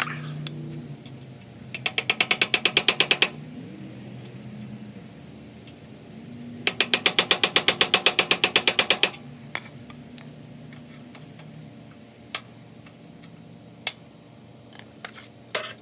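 A ratchet wrench turning a nut or bolt in two runs of rapid clicking, about nine clicks a second. A few single metal clicks follow near the end.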